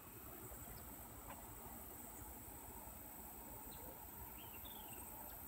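Faint, steady, high-pitched chorus of insects such as crickets, with a couple of short bird chirps about four and a half seconds in.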